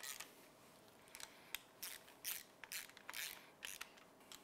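Faint clicking rasps of a hand ratchet wrench, about two strokes a second and unevenly spaced, as the output flange housing's mounting bolts are run in a couple of turns each to pull the housing evenly into the crankcase.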